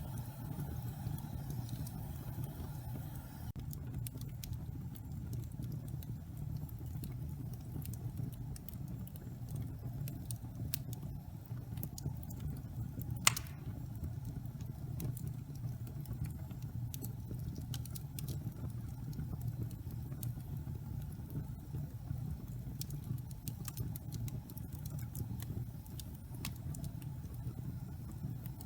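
Wood fire burning in a fireplace: a low steady rumble with scattered small crackles and one sharp, loud pop about halfway through.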